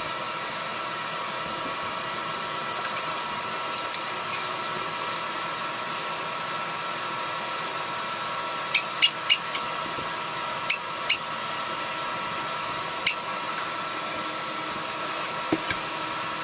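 A sanding sponge rubbed by hand over a filled repair spot on a truck's painted body panel: a steady scratching hiss over a constant hum, with a few sharp clicks in the second half.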